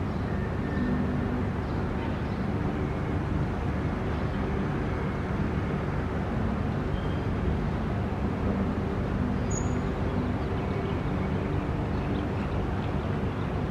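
Steady low background rumble, with a faint hum coming and going and a single brief high chirp about ten seconds in.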